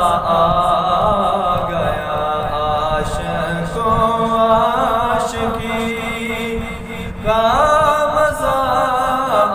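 A solo male voice singing a naat in a chanting style, with long held notes that bend and ornament. There is a brief dip about seven seconds in before the next phrase rises.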